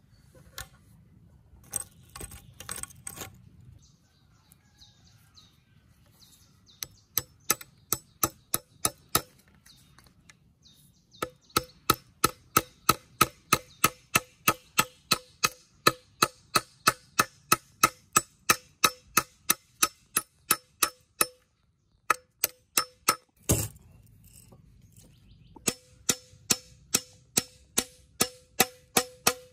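Hammer driving nails through a caster wheel's metal mounting plate into the end of a wooden post: sharp ringing blows, two or three a second, in long runs. A single heavy knock falls between the runs, after a short pause.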